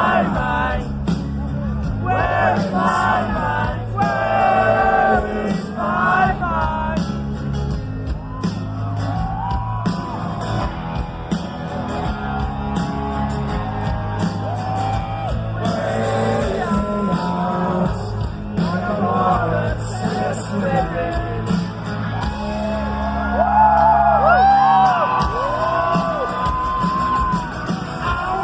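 Rock music with a singing voice over a steady heavy bass.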